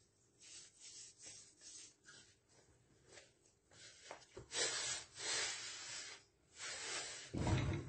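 Hands kneading soft pizza dough in a floured wooden bowl: repeated rubbing and squashing sounds of dough worked against the wood, stronger in the second half, with a dull thump near the end.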